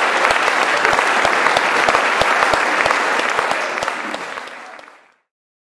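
Audience applauding, a dense even clapping that fades out to silence about five seconds in.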